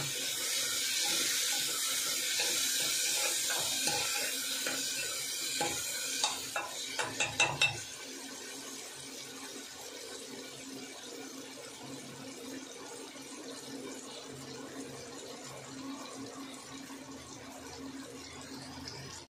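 Vegetables frying and sizzling in an aluminium pressure cooker while a metal spoon stirs them. About six sharp taps of the spoon against the cooker come in quick succession just past the middle, and then a quieter steady sizzle.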